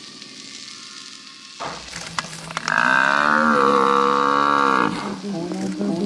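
A large animal bellows in one long, loud, moo-like call lasting about two seconds, starting about three seconds in. A softer, wavering call follows near the end.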